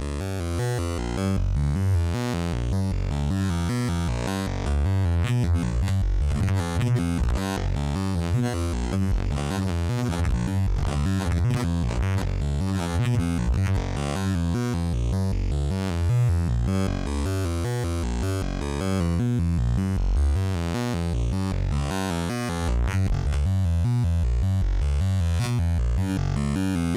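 Homemade CPU-less wavetable synthesizer oscillator, reading its waveforms from flash memory, playing a rapid run of synth notes whose pitch jumps several times a second. It cuts off suddenly at the end.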